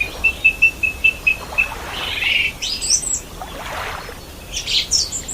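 Wild birds calling: a quick run of about eight short, even notes in the first second and a half, then assorted chirps and high, falling calls from other birds.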